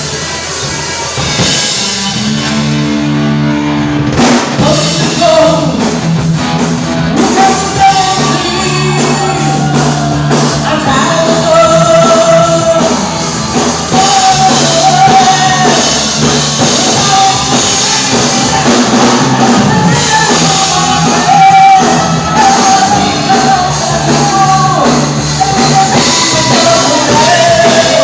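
Live rock band playing, with a singer holding long high notes over the instruments. The drum kit and cymbals come in about four seconds in.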